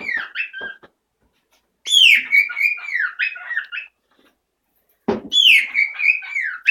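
Pet bird whistling a loud song phrase: a high note sliding down into a run of wavering whistled notes, repeated about every three seconds. A sharp knock sounds just before the last repeat.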